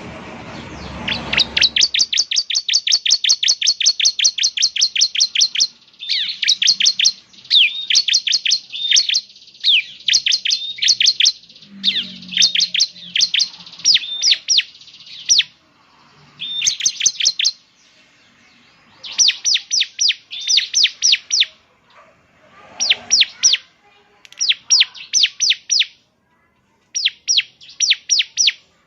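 Bar-winged prinia (ciblek) singing: rapid runs of sharp, high, downward-sweeping notes, about eight a second, in bursts of a few seconds separated by short pauses.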